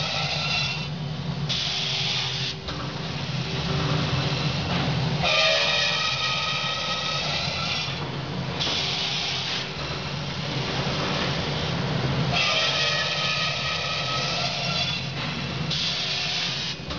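An automatic circular saw with a 370 mm HSS blade cuts aluminium bar stock in repeating cycles, over the steady hum of its motor. Three cuts are heard, about seven seconds apart. Each is a high, ringing screech lasting a few seconds, followed by a short burst of hiss.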